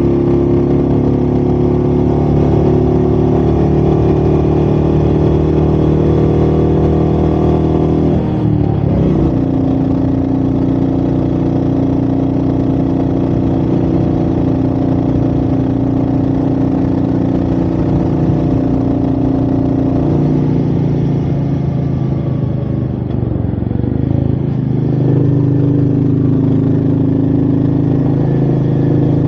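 Royal Enfield Meteor 350's single-cylinder engine running under way. The engine note dips and settles lower about eight seconds in, then shifts again between about twenty and twenty-five seconds, as the revs change.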